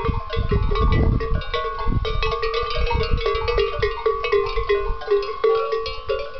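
Several cowbells on grazing Tudanca cattle clanking unevenly and overlapping, the bells at different pitches, over a low, uneven rumble.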